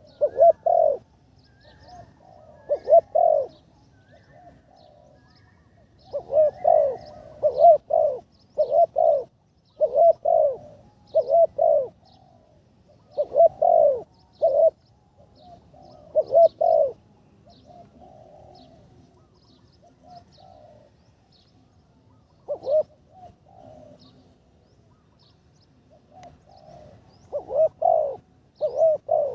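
Spotted dove being trained as a decoy, cooing in repeated short phrases of two to four low coos every few seconds. Faint high chirps of small birds run underneath.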